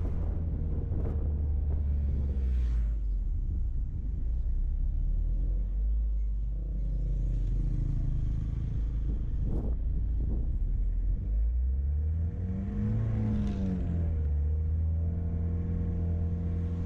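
Car driving on a paved road: steady low engine and road rumble, with a brief knock a little past halfway and the engine note rising and falling once about twelve seconds in.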